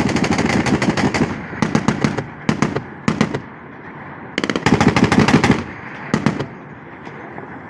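Anti-aircraft gun firing in rapid automatic bursts: a long burst at the start, three short bursts, a second long burst about halfway through and a brief one near the end.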